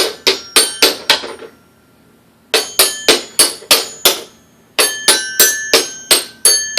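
A child striking a toy xylophone, about three strikes a second, each bar ringing a clear note. The strikes come in three runs split by short pauses of about a second.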